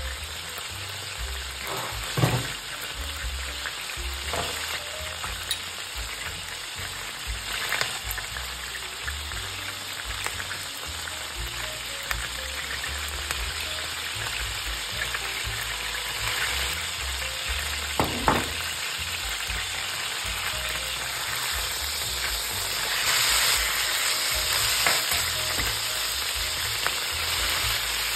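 Turkey thigh fillet frying in butter in a pan, a steady sizzling hiss with a few sharp clicks.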